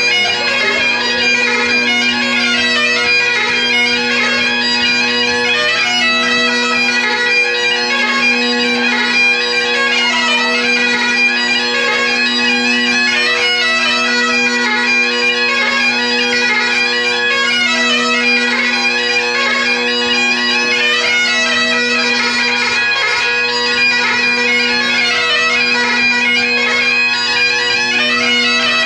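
Great Highland bagpipe played solo: steady drones sound continuously under a running chanter melody.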